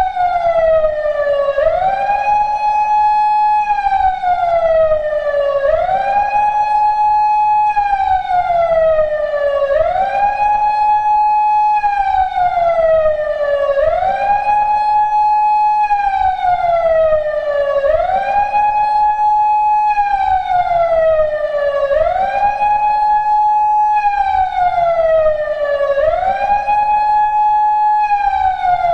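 PATLITE SAP-50 electronic siren amplifier sounding a repeating wail, loud and steady. About every two seconds the tone rises quickly, holds briefly at the top, then falls slowly back down.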